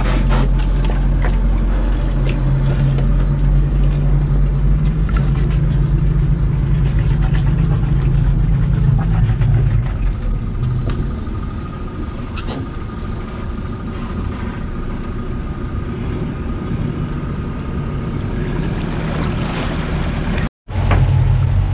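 Motorboat engine running steadily as the boat reverses off its trailer into the water. The low hum is strongest at first and grows softer about halfway through as the boat pulls away.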